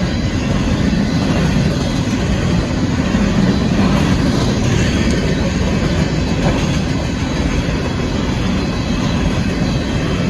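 Union Pacific empty coal train rolling past: a steady rumble and clatter of the car wheels on the rails.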